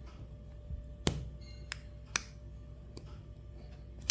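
Snap-fit clips of a Xiaomi Redmi 2's plastic case clicking as a pry tool works the case apart at its edge: two sharp clicks about a second apart, with a fainter one between them, over a low steady hum.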